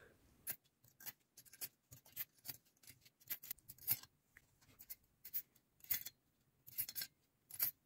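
Faint, irregular light metallic clicks and taps as valve springs are set by hand onto the VW EA288 2.0 TDI cylinder head during valve assembly.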